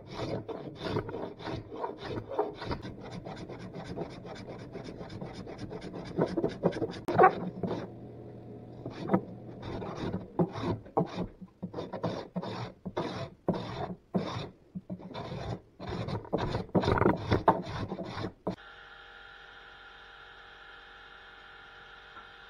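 Steel card scraper pulled in quick repeated strokes across a glued-up softwood panel, scraping off dried glue squeeze-out. The strokes become fewer and more spaced about eight seconds in. Near the end they stop abruptly, giving way to a steady, quieter hum.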